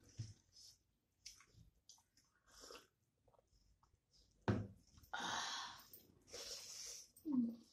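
Close mouth sounds of eating by hand: soft chewing and lip clicks at first, then a sharp gulp and loud sipping from a mug around the middle, then more noisy chewing and mouth sounds near the end.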